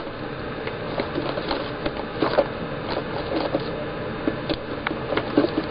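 Borax powder being poured straight from its box into a plastic cup of water: a steady light hiss with scattered small ticks and taps.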